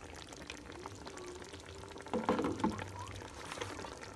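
Cooked broad beans and their liquid being poured into a pot of simmering oxtail stew, loudest about two seconds in.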